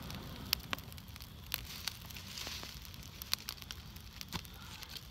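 Campfire of dry leaves crackling, with scattered sharp pops and snaps as the leaves catch, and a brief hiss about two and a half seconds in.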